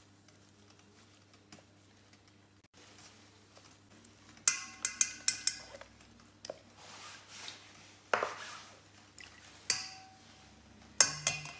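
A metal mesh strainer clinking against a steel pot while a spatula scrapes milk curds in it, draining off the whey. Faint at first, then a quick run of clinks about halfway through, followed by a few scrapes and single clinks near the end.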